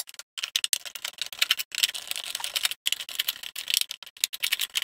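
Quick, irregular small clicks and taps: a screwdriver turning out the screws of a plastic push light's back cover while the plastic housing is handled.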